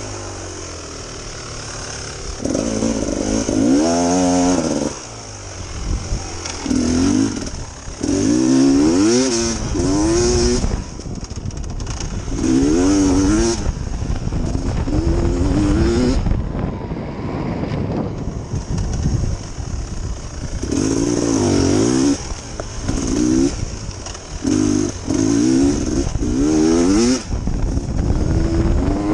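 Dirt bike engine being ridden hard, revving up and dropping back in short bursts as the throttle is opened and shut again and again.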